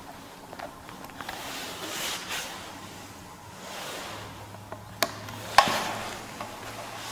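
Quiet rustling and handling noise, with two sharp clicks a little over half a second apart about five seconds in. A faint low hum starts about four seconds in.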